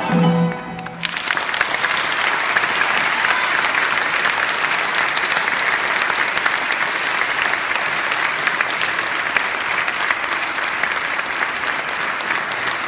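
The last plucked notes of a qanun piece ring out and stop about a second in, then a concert audience applauds steadily.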